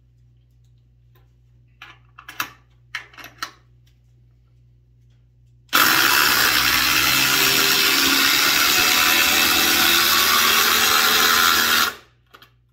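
DeWalt DCF840 and Milwaukee M18 Fuel Gen 3 impact drivers hammering together, driving 6-inch lag screws into wood. The dense, continuous rapid impacting starts about six seconds in, runs loudly for about six seconds and cuts off near the end. A few light knocks come before it.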